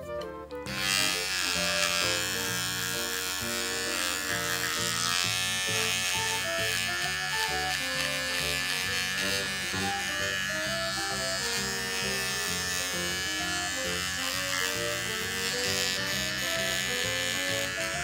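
Small electric pet hair trimmer buzzing steadily as it shaves the fur between a dog's paw pads, starting about a second in. Background music plays throughout.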